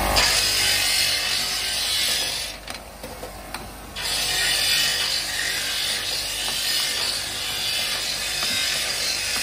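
Steel motorcycle brake shoes rattling and clinking as they are handled and set into a round metal fixture plate, over dense workshop machine noise. The noise drops away briefly about two and a half seconds in and returns at four seconds.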